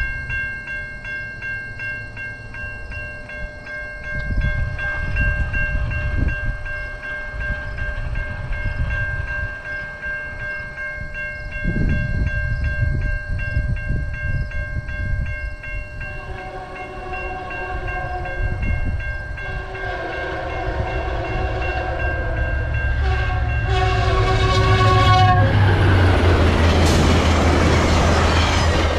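Level-crossing warning bell ringing steadily while a VIA Rail passenger train approaches. About halfway through, the diesel locomotive's horn sounds the crossing signal: two long blasts, a short and a long. In the last few seconds the locomotive and coaches pass close by with loud wheel-on-rail noise and a low engine rumble.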